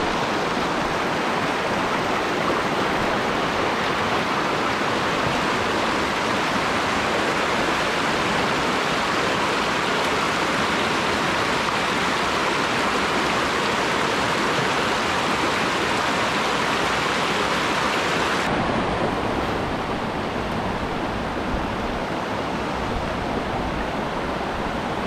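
Small high-mountain stream's water rushing in a loud, steady wash. About eighteen seconds in it abruptly turns duller and a little quieter.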